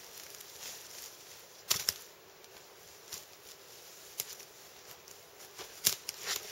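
Footsteps on a dry spruce-forest floor of needles and twigs, with sharp twig snaps and cracks. The loudest is a pair just under two seconds in, then another crack, then a quick cluster near the end.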